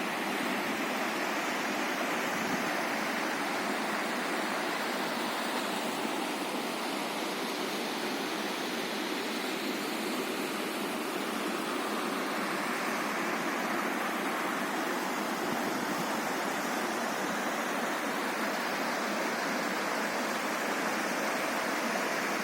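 Floodwater rushing down a stream channel: a steady, even roar of fast-flowing water.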